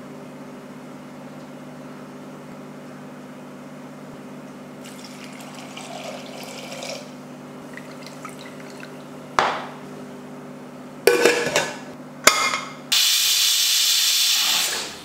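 A steady low hum runs under a few short, sharp bursts. Near the end, a pressure cooker's whistle weight lifts and steam vents in a loud, steady hiss for about two seconds.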